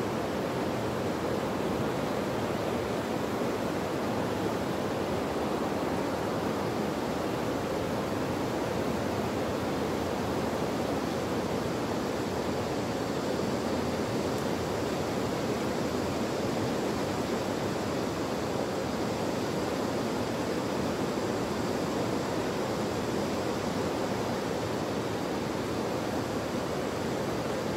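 Steady, unbroken rush of a fast, swollen muddy river in flood, a dense roar of water with no change in level.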